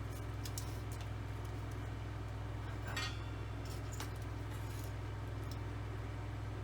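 A steady low hum with a few light metallic clinks and taps, the clearest about halfway through.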